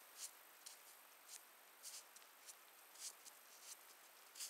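Near silence with faint, short, high clicks at irregular spacing, about two a second.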